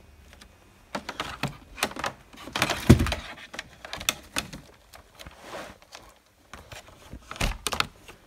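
Handling noises: a run of irregular clicks, taps and knocks, with a heavier thump about three seconds in and another near the end.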